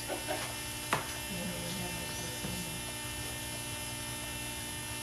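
Steady electrical mains hum, with a single faint click about a second in.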